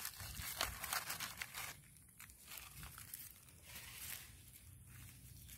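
Dry fallen coffee leaves crackling and rustling as a hand rakes through the leaf litter. The crackles are busiest in the first couple of seconds, then fainter and more scattered.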